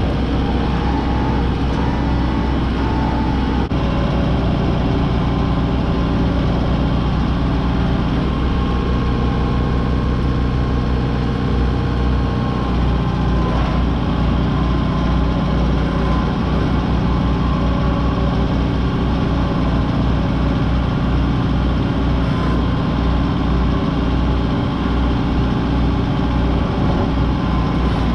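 Kubota M6060 tractor's diesel engine running steadily as the tractor drives along a rough dirt track, heard loud and close from the operator's seat.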